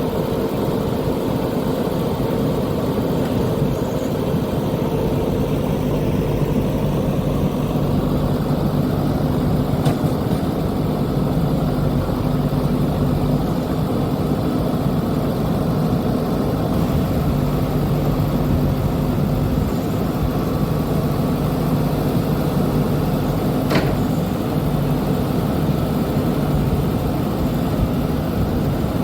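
Backhoe loader's diesel engine running steadily, with one brief click late on.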